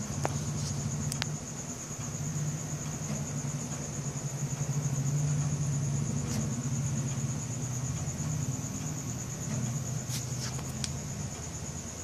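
Crickets trilling steadily at night over the low hum of an engine running, which grows louder toward the middle and then eases off a little. A few faint clicks.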